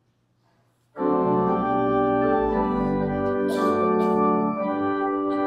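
Organ begins playing sustained chords about a second in, after a moment of near silence.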